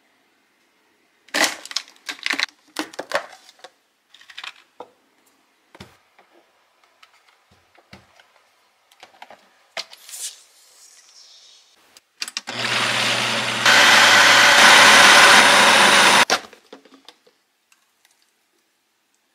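A few sharp knocks and clatters, then a countertop blender puréeing spinach with cream, garlic, olive oil and parmesan. The blender runs for about four seconds, gets louder partway through, and cuts off suddenly.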